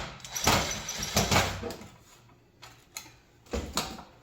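Metal scraping and clattering in a few short bursts as a stubborn screw on the side of a coffee warmer's sheet-metal housing is worked at.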